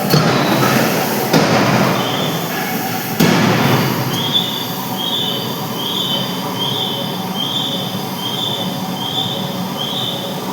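Steady forge-shop machine noise with metal knocks about a second and a half and three seconds in. From about four seconds in, a high squeak repeats evenly a little under twice a second.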